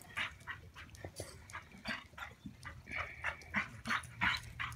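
A dog yipping and whining excitedly in quick, short high cries, about three a second, with one longer whine about three seconds in.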